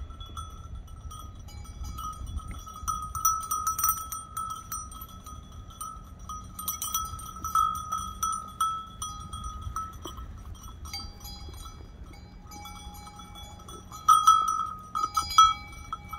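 A bell worn by a feeding sheep, clinking again and again as the animal moves its head at the feed tub. A second, lower-pitched bell joins about two-thirds of the way through, and there are a few louder clanks near the end.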